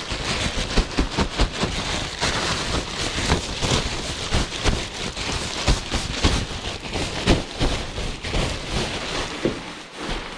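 Plastic packaging sheet crinkling as it is pulled and handled, a dense run of irregular crackles.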